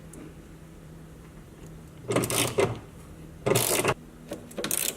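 Ratchet wrench clicking in two short bursts, about two seconds in and again a second later, then a few lighter clicks, as a 15 mm bolt on the car's front strut brace is loosened.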